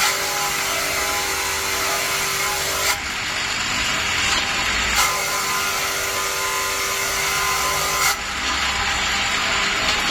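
Profile-tube cleaning machine working an 80×80 mm steel square tube: a harsh grinding hiss comes in twice for about three seconds each, with the machine running more quietly between the passes.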